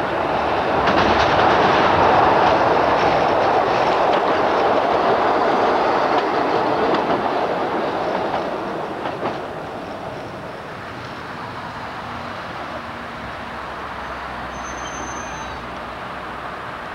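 Blackpool single-deck tram running along its track, a steady rumble of wheels on rail with a few clacks over the rail joints. The sound drops away about two-thirds of the way through as the tram moves off.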